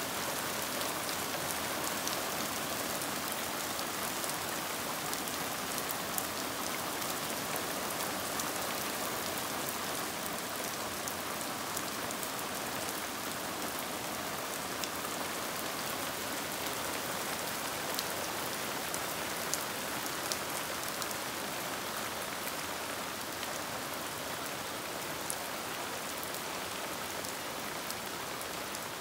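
Hard rain falling steadily: an even hiss with the odd sharp tick of a nearby drop.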